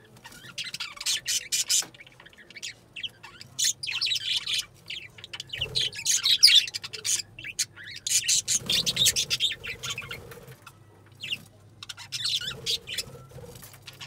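A flock of budgerigars chattering, rapid high chirps and warbles coming in bursts with short lulls between.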